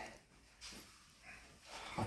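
A short, quiet pause in a man's speech: faint room tone with a brief soft breath about half a second in, and his voice starting again at the very end.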